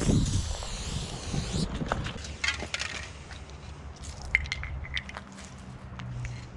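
Aerosol spray paint can hissing steadily for about a second and a half as silver paint goes onto the wall. Then footsteps crunching over dry leaves and debris on concrete, with scattered clicks and small rattles.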